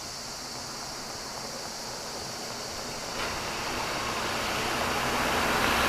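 A passenger bus approaching and drawing close, its engine and tyre noise a steady rush that grows louder throughout, with a sudden step up about three seconds in.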